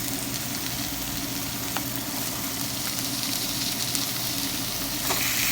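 Marinated chicken pieces sizzling in hot oil in a frying pan, a steady hiss that gets louder about five seconds in.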